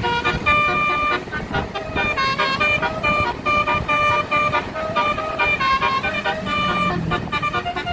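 Bus telolet horn, a Basuri multi-trumpet musical air horn, playing a quick tune of chords that change every fraction of a second, with some notes held about a second.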